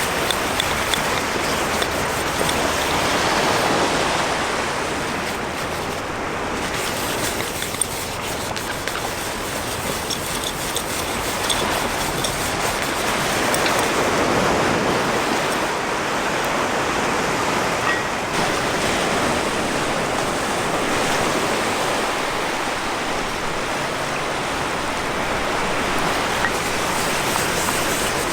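Sea waves washing onto the shore, a steady rushing hiss that swells and eases every several seconds.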